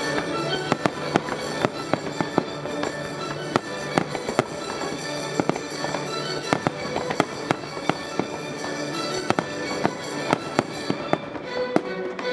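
Fireworks going off in rapid, irregular succession, several sharp bangs a second, with music playing underneath.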